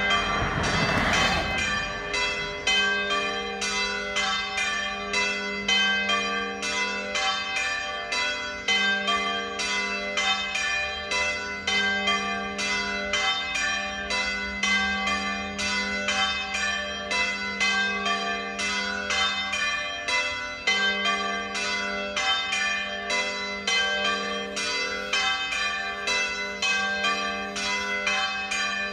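A ring of three swinging church bells sounding together in a full peal (plenum), their strokes at several pitches overlapping several times a second, calling to the Sunday Mass.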